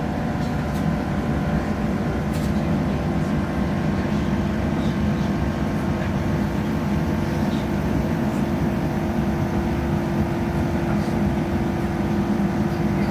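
Steady low drone of a diesel passenger train heard from inside the carriage: engine hum and running rumble holding a constant pitch.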